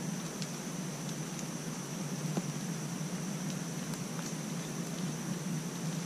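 Steady outdoor background hiss with a thin, high, steady whine held throughout, broken by a few faint light ticks.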